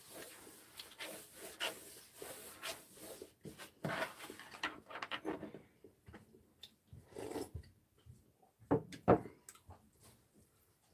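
Table and eating noises: a cloth or tissue rubbing across a wooden table amid small clicks of chopsticks and dishes, then quieter, with a couple of sharper knocks about nine seconds in as a soup bowl is set back down on the table.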